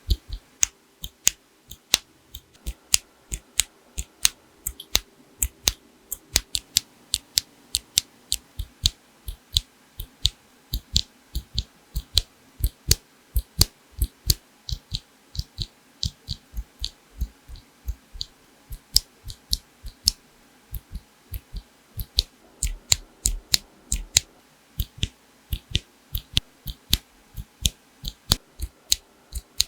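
Typing on a mechanical keyboard with tactile switches: a steady run of separate keystrokes, about three a second.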